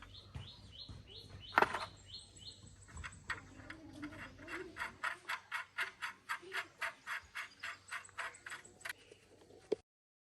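A steady run of light, sharp clicks or taps, about four a second, after a quick string of high chirps in the first couple of seconds; the sound cuts off abruptly near the end.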